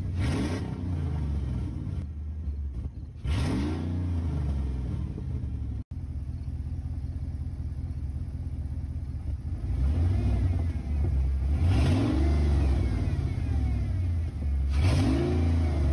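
Hemi V8 engine with its exhaust system cut off, running loud and being revved four times: once at the start, once after about three seconds and twice near the end, each rev climbing and dropping back to a rumbling idle.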